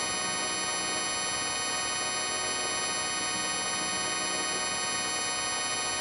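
A sound effect layered at many pitches at once into a dense, unchanging chord of steady tones, with a fine ticking grain underneath.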